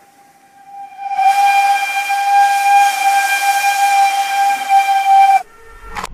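A steady, high whistle over a loud steam-like hiss, swelling in about a second in and held for about four seconds. It cuts off suddenly near the end and gives way to a short crackle of electronic glitch noise.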